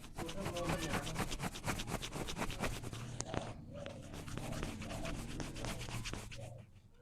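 Strands of hair rubbed and twisted between the fingers in a hair-cracking massage, making a dense, rapid crackling with a brief break about halfway through.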